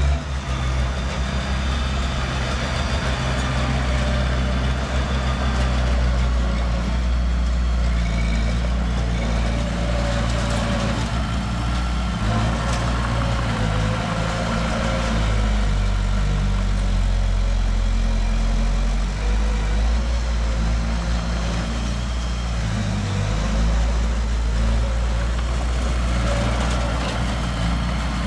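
Diesel engine of heavy earthmoving equipment running steadily at a low, even pitch, with no revving or sharp knocks.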